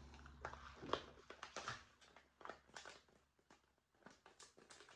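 Faint, irregular small clicks and rustles of handling: small glass beads and a nylon stocking being worked into a reborn doll's head.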